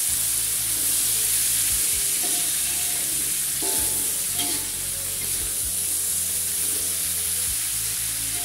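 Winged beans sizzling steadily in hot oil in a metal wok while a metal spatula stirs and turns them, scraping against the pan.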